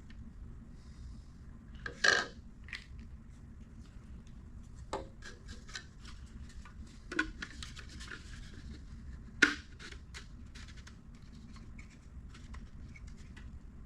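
3D-printed plastic whistle parts being handled and fitted together: scattered clicks and light rubbing, with two sharper knocks about two seconds in and about nine and a half seconds in.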